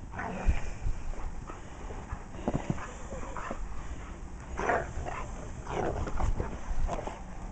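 Dogs giving short, excited yips and whimpers while playing, a string of separate calls every second or so.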